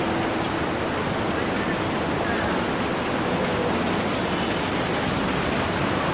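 Steady wash of city street traffic noise, with no single vehicle standing out.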